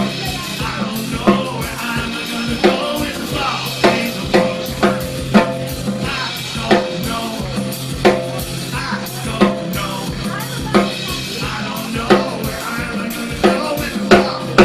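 Live band music: acoustic guitar strummed over a drum kit, with a strong drum accent about every second and a third.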